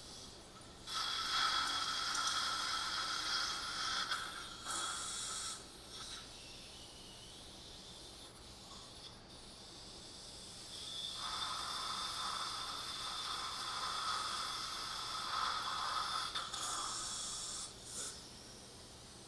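Dental implant surgical handpiece drilling into the jawbone with a steady whine, in two runs: one of about four seconds starting about a second in, and one of about six seconds starting about eleven seconds in. The first is a 2.2 mm OneCAS twist drill and the second a 3.1 mm OneCAS drill.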